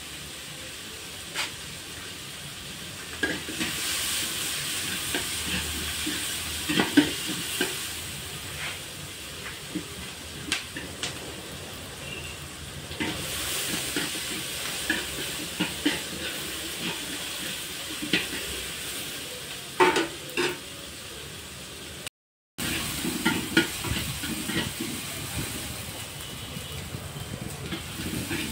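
Onion, tomato, green chilli and ginger sizzling as they fry in a wide metal pan, stirred with a metal ladle that scrapes and knocks against the pan every second or so. The sound cuts out for a moment near the end.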